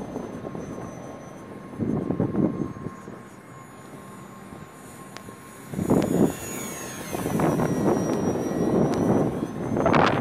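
Electric motor and propeller of a 1600 mm foam radio-controlled P-51D model in flight: a thin high whine whose pitch rises and then drops. Wind gusts rumble on the microphone about two seconds in, about six seconds in, and toward the end.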